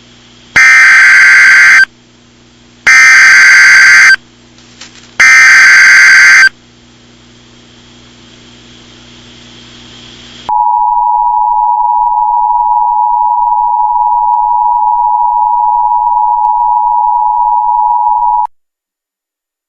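Emergency Alert System header: three loud bursts of warbling digital data tones, followed a few seconds later by the steady two-tone EAS attention signal (853 and 960 Hz) held for about eight seconds before it cuts off. The sequence announces the start of a new emergency alert message.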